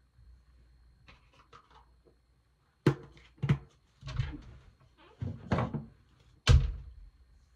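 A plastic skincare jar and its screw lid being handled, closed and set down: a series of about five knocks and thunks in the second half, after some soft rustling.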